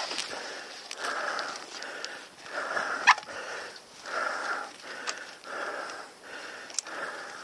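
Heavy, quick breathing of the rider inside his helmet, breaths in and out about twice a second, as he gets his breath back from the exertion. A single sharp click about three seconds in.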